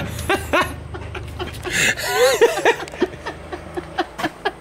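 A woman giggling, several short laughs with pauses between them.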